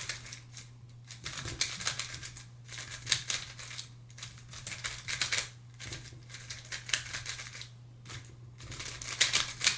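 Tornado V3 Flagship magnetic 3x3 speed cube being turned fast in an example solve: rapid runs of plastic clicks and clacks in quick bursts, with short pauses between them.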